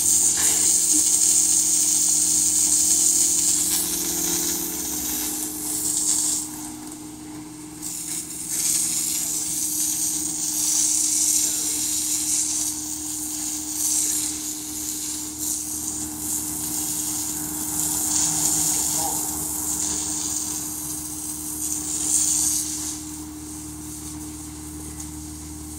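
Garden hose spray hissing onto wet paving stones, coming and going in long spurts and dying away near the end, over a steady low hum.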